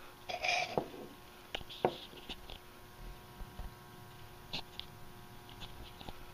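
A brief rustle about half a second in, then a few scattered soft clicks and ticks over a faint steady electrical hum.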